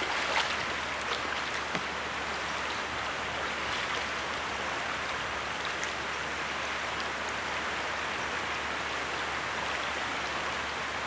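Fast-flowing river floodwater rushing and lapping just past the microphone, a steady even wash, with a few small splashes in the first two seconds.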